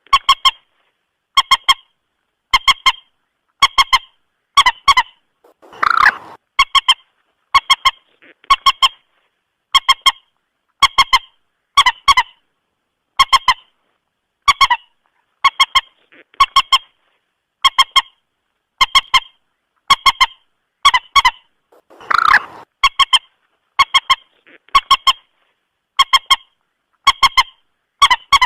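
Common moorhen (mandar batu) lure call: short, honking calls repeated over and over, about once or twice a second and often in quick pairs. About 6 s and 22 s in, a louder, harsher call stands out.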